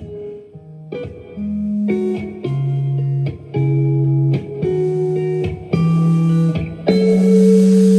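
Live band music led by guitar, with bass, playing the closing bars of a song: a run of short chords with brief breaks between them, then a final chord held from about seven seconds in, with a wash of high noise over it.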